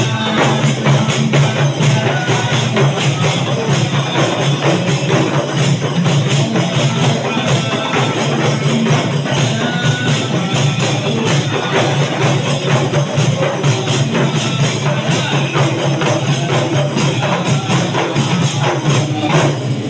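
Hand-beaten rebana frame drums (terbangan) played together in a fast, steady, dense rhythm.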